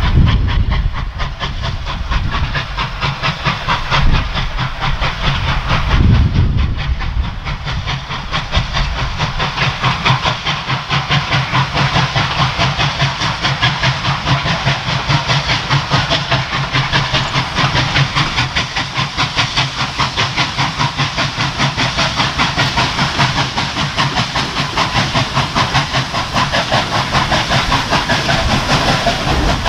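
Victorian Railways K class 2-8-0 steam locomotive working hard as it approaches, its exhaust beating in a quick, steady rhythm over a hiss of steam. A few low thumps come at the start and about four and six seconds in.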